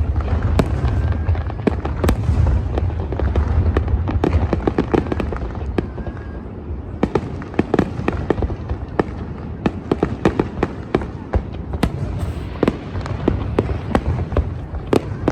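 Fireworks display: a steady stream of sharp bangs and crackling pops, over a deep rumble of booms that fades after the first six seconds or so while the bangs go on.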